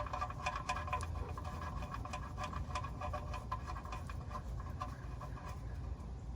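Quick, irregular light clicks and scrapes of an oil drain bolt being threaded back into the oil pan by hand. The clicking thins out near the end.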